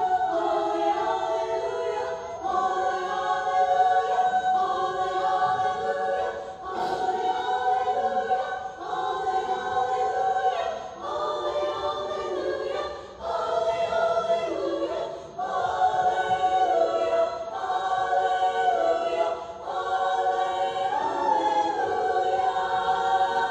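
Girls' choir singing unaccompanied in close harmony: held chords in phrases, with short breaks for breath between them. The song ends near the end.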